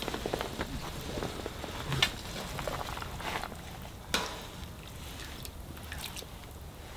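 Scattered light clicks and taps of things being handled, with two sharper clicks about two and four seconds in.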